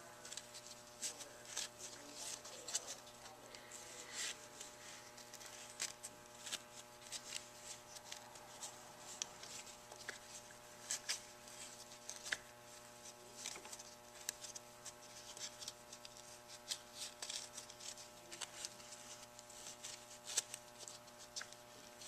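Seat belt webbing scraping and rustling against a clip-on seat belt retractor as it is worked through the retractor's slots, in faint irregular clicks and scuffs. A faint steady hum runs underneath.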